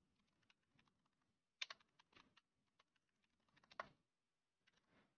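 Faint computer keyboard keystrokes: scattered key clicks, with two louder clusters about a second and a half in and near four seconds, as a password is typed at a terminal prompt.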